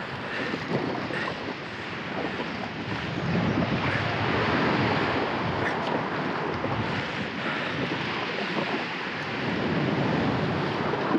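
Small surf and water washing around an inflatable kayak, with wind buffeting the microphone. The wash swells about four seconds in and again near the end.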